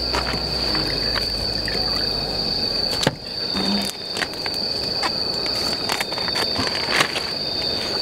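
Crickets trilling steadily in one continuous high-pitched drone. Two sharp clicks, about three and seven seconds in, come from utensils and packaging being handled at the table.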